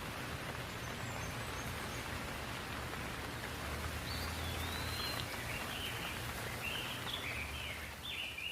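Steady rainfall hissing evenly, with a bird chirping in short repeated calls from about halfway in.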